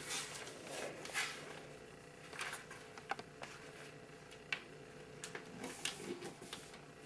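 A sheet of paper being folded and creased by hand into a paper airplane: scattered short rustles and crinkles with small clicks.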